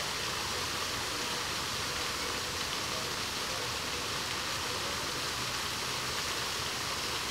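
A steady rushing hiss of running water, even and without breaks.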